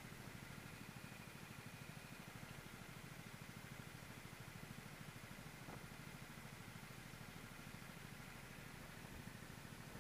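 Racing kart engine running steadily at speed, heard faintly from the driver's seat, an even fast-pulsing drone.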